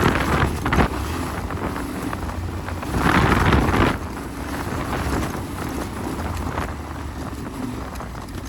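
Yamaha Ténéré 700's parallel-twin engine running steadily at low revs while riding, with wind buffeting the microphone. A louder rush of noise comes about three seconds in and lasts under a second.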